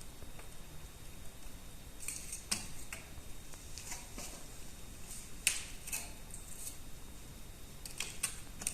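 Scattered light clicks and rustles of handling, with a few sharper clicks about two, five and a half and eight seconds in.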